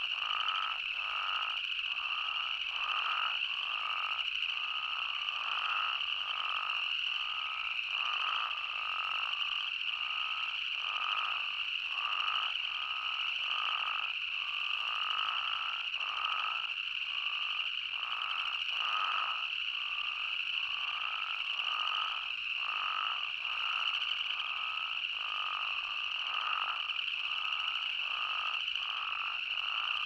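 Chorus of spadefoot toads: many short calls repeating and overlapping, about two a second, over a steady high-pitched hum from the rest of the chorus.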